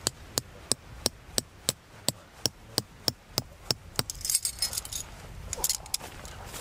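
Claw hammer striking a metal tent peg into soft ground, about three sharp metallic knocks a second for the first four seconds, the peg driving in easily. Then loose metal tent pegs clink and jingle together as they are handled.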